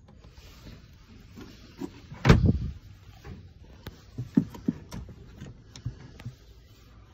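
Handling noise while the camera moves into the car's cabin: one loud knock with a rustle about two seconds in, then a scatter of light clicks and taps.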